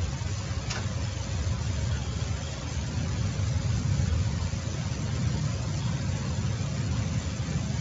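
A steady low rumbling drone with a hiss over it, and one faint click just under a second in.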